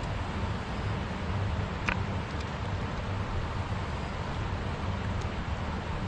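Steady rumble of wind buffeting the microphone over the rush of a flowing river. A single brief click comes about two seconds in.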